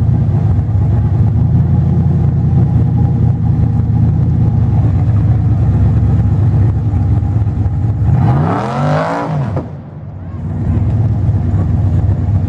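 Rock bouncer buggy's engine running loud and steady under throttle as it climbs a rock ledge. About eight seconds in, the revs swing up and fall away, and the engine note dips briefly before coming back.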